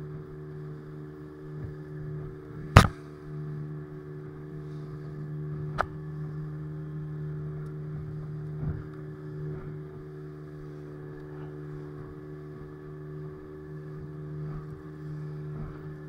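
Small fishing boat's engine running with a steady hum. A sharp knock comes about three seconds in, and a lighter one near six seconds.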